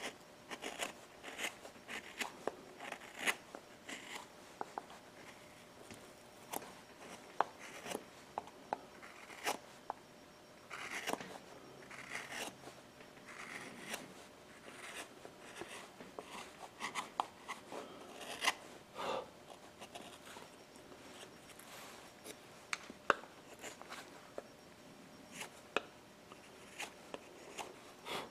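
A small carving gouge taking short cuts into the underside of a wooden hat brim: an irregular run of small snips, clicks and scrapes as chips come away.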